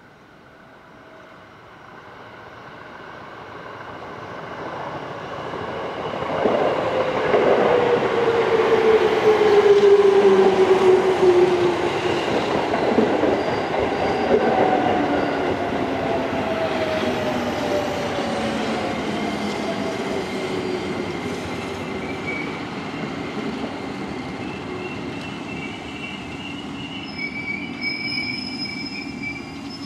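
JR 205 series 5000-subseries electric train pulling into a station: its running noise swells as it approaches, and the traction motors' whine falls in pitch as it brakes. Near the end a high brake squeal sounds as it comes to a stop at the platform.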